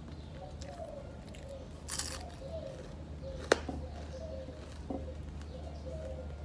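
A person eating with her fingers from a plate, with faint chewing, a short crunchy rustle about two seconds in, and a single sharp click, the loudest sound, a little past halfway.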